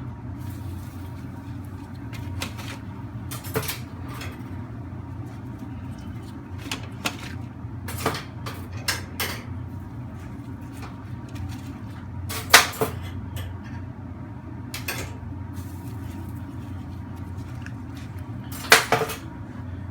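Metal kebab skewers knocking and clanking against a dish as the grilled lamb pieces are pushed off them, a few irregular sharp clanks, the loudest about two-thirds of the way in and near the end, over a steady low hum.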